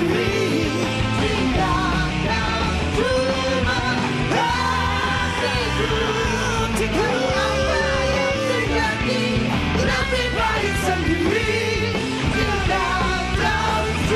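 Rock song played by a band, with a singer holding long, wavering notes without clear words over the instruments.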